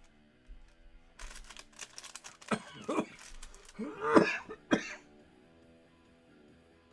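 A person coughing and clearing their throat, four or five sharp coughs over a couple of seconds, over steady background music.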